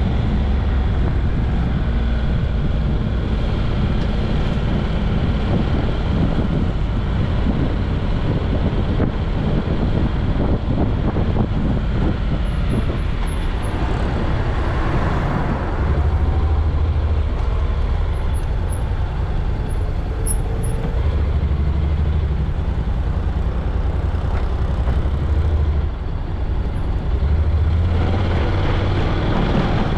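Steady engine and tyre noise of a car being driven, heard from inside the cabin: a continuous low drone with road hiss.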